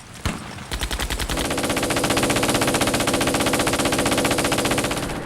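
Sustained, rapid machine-gun fire: a long unbroken string of shots, about a dozen a second, starting under a second in.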